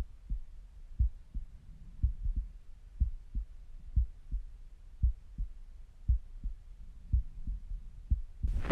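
A human heart heard through a stethoscope at rest: a steady lub-dub, about one beat a second. Near the end a loud rustling scrape cuts in over it.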